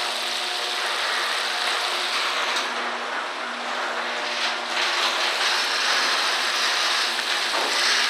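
Breaded crappie deep-frying in hot peanut oil, a steady dense sizzle, with a faint steady low hum underneath.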